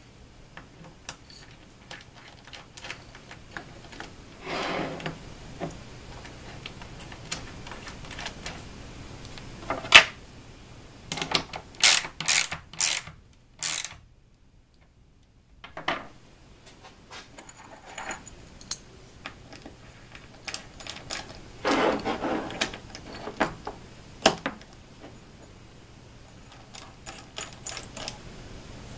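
Metal hold-down clamps, bolts and nuts being handled and tightened in the T-tracks of a CNC router table with a ratchet wrench: scattered metallic clinks and clicks, with short runs of ratchet clicking. The sound drops out completely for about two seconds near the middle.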